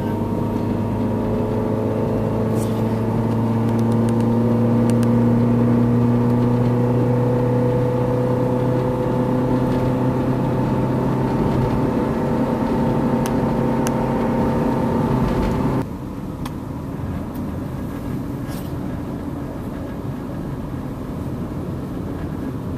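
Car engine and tyre noise from a car driving at a steady speed, the engine note holding steady with a slight rise. About 16 s in it cuts abruptly to a quieter stretch of driving where tyre and road noise outweigh the engine.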